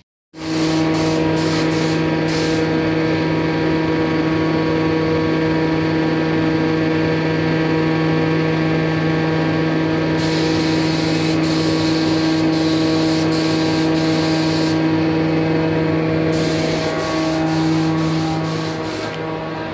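Gravity-feed spray gun spraying stain, its air hiss coming and going: briefly at the start, then in longer spells about ten seconds in and again near the end. Under it runs a steady machine hum.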